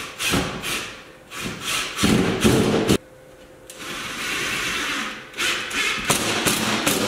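Cordless drill-driver run in a series of short bursts, with a steadier run about four seconds in, driving screws to fasten metal conduit to the wall.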